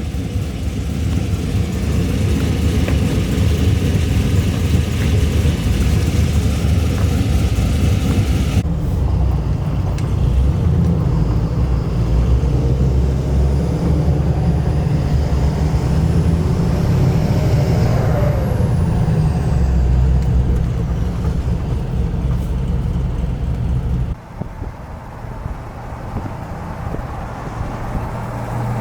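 A car engine running with road noise, in several clips cut together; the sound changes abruptly about nine seconds in and again near the end.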